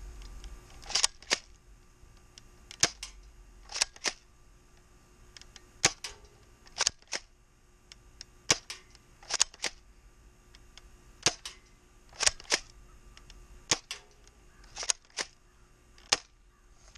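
Airsoft pump-action shotgun (an 870-style replica) being worked and fired over and over: sharp, short clacks from racking the pump and snaps from the shots. They come in a repeating pattern of a quick pair followed by a single one about a second later, about six times.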